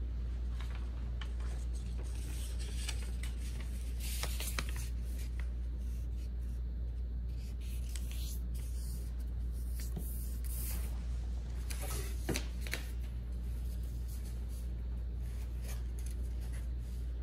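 Room tone: a steady low hum, with a few faint rustles and small clicks, a cluster about four seconds in and another near twelve seconds.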